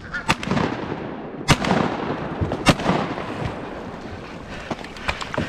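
Two shotgun shots at geese, about a second apart, each trailing off in a brief echo.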